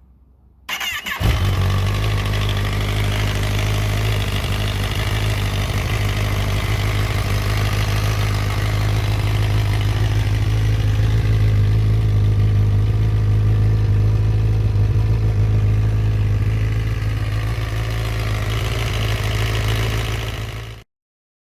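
Kawasaki ZX-10R inline-four motorcycle engine cranked on the starter, catching about a second in and then idling steadily. The sound cuts off abruptly near the end.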